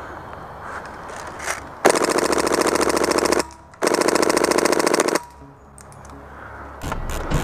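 HPA-powered F2000 airsoft rifle firing two long full-auto bursts of rapid, even shots, about a second and a half each, with a short gap between them.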